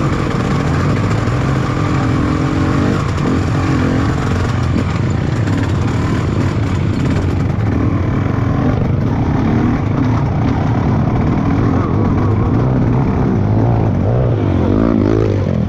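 Trail motorcycle engine running as the bike is ridden, its pitch rising and falling with the throttle, most clearly near the end.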